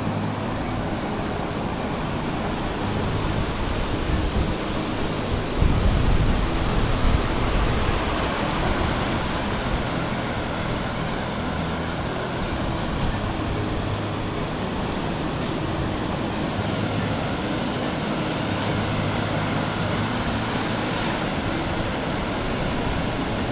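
Ocean surf washing up onto a sandy beach, a steady rushing noise. A louder low rumble comes in for a couple of seconds about six seconds in.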